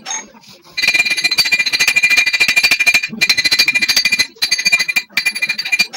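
Hammer striking a steel speargun rod laid on a steel plate: fast, ringing metallic taps, many a second, in runs broken by a few short pauses, starting in earnest about a second in.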